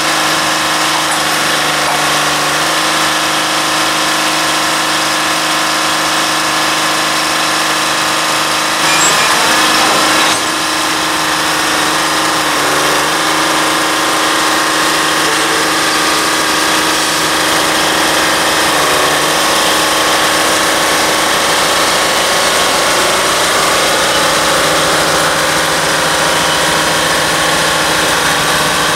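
Jordan spreader's onboard engine running steadily close by. The engine note rises and gets louder briefly about nine seconds in, with a couple of smaller changes in pitch later on.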